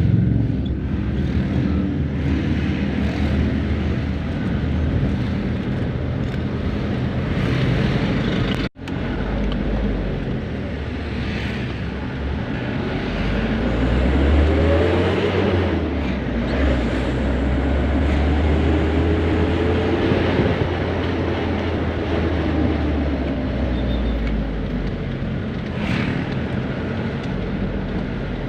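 Tuned engines running steadily, with one engine's pitch rising and then falling again through the middle as it speeds up or passes. The sound cuts out for an instant about nine seconds in.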